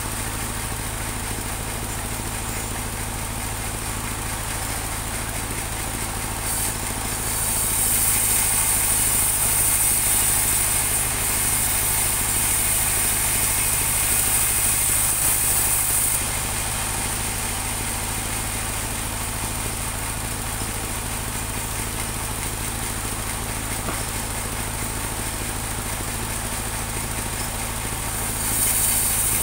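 Engine of a portable bandsaw mill running steadily. The band blade cuts through teak from about a quarter of the way in to about halfway, adding a louder high-pitched hiss, and starts cutting again just before the end.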